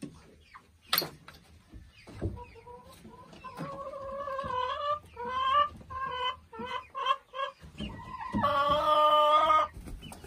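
Hen cackling: a run of short clucks that grow louder, ending in a long drawn-out call near the end. A single sharp click about a second in.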